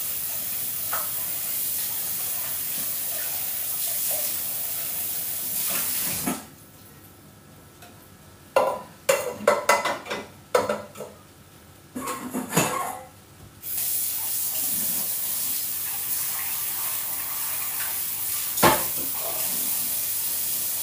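Steady rush of water running from a kitchen tap, cut off about six seconds in. Dishes and pots clatter for several seconds, then the water runs again, with one sharp clack near the end.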